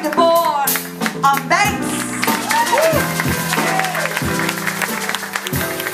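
A woman singing live into a microphone with a band of grand piano and electric bass guitar. Her voice slides and bends through runs over the held chords and plucked bass.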